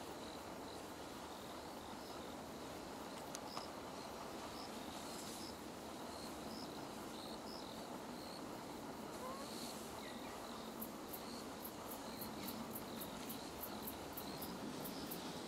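Insects chirping in the open: short high chirps repeating irregularly over a steady outdoor hiss. Past the middle, a rapid run of very high ticks comes in at about three a second.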